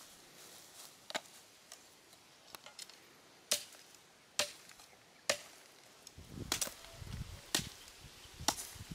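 A blade chopping into a bamboo stick: about six sharp strokes at uneven intervals, with a stretch of crackling and rustling between about six and seven and a half seconds in.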